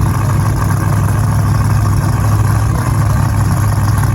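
A car engine idling steadily, deep and even, with no revving.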